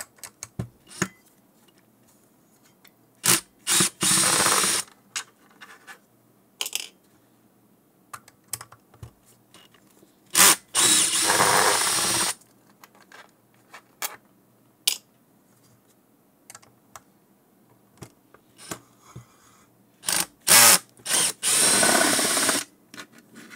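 Drill-driver backing screws out of the motor controller's housing, in three runs of a second or two each, with small clicks and taps of the screws and housing being handled between them.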